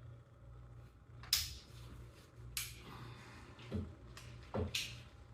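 Metal tools and car parts clinking and clanking during reassembly: a sharp clink about a second in, followed by several more knocks, two of them with a dull thump.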